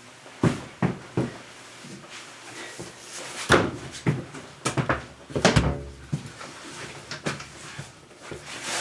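Irregular knocks and clunks of a 4-inch PVC drain pipe being handled and worked into its rubber couplings. The knocks are loudest about three and a half and five and a half seconds in.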